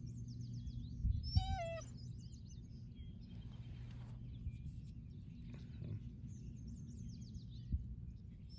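Outdoor background of birds chirping in runs of short falling notes over a steady low hum, with a brief high wavering call, cat-like, about a second and a half in.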